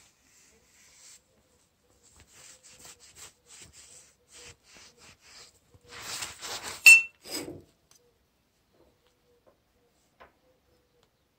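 A cloth rag rubbed back and forth along the steel blade of an M95 bayonet in short wiping strokes, cleaning off grime. Near the middle the scrubbing turns faster and louder and ends in one sharp metallic clink.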